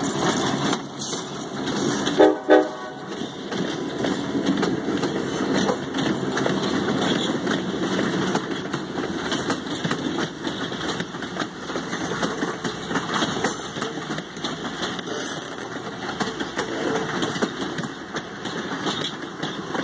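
Passenger cars of a diesel-hauled train rolling past at close range, with a steady rumble of wheels on the rails. About two seconds in, the horn gives two short toots.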